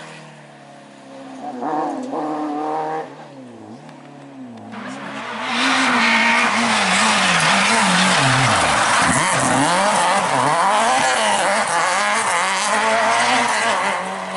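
Renault Clio rally car engines at full throttle. For the first few seconds one car's engine fades away, its pitch stepping with gear changes; then, about five seconds in, a second car comes up loud, its revs rising and falling again and again as it slides through the bend, with tyres scrabbling and loose gravel spraying.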